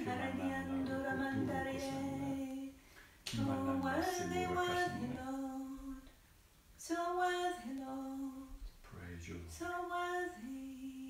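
A woman singing unaccompanied in long held notes: a slow worship melody in four phrases with short breaks between them.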